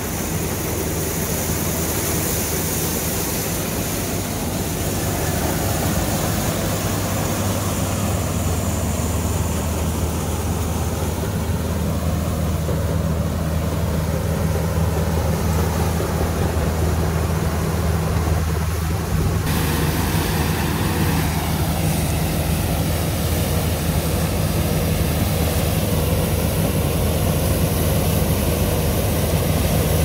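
Old Allis-Chalmers combine harvester running steadily as it harvests wheat: its diesel engine drones, with the noise of the threshing machinery over it.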